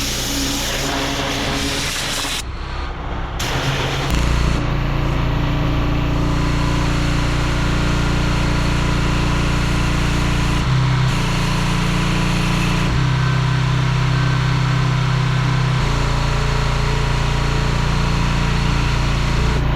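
Engine-driven pressure washer running steadily with a hiss of water spray; its hum shifts abruptly a few times.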